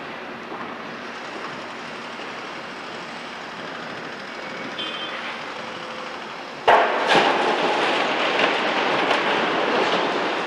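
Volvo EC300 excavator dumping a bucket of demolition rubble into a tipper truck's steel body. Over steady engine noise, a loud crash comes about two-thirds of the way through, then a second hit, then a few seconds of rattling rubble pouring and settling.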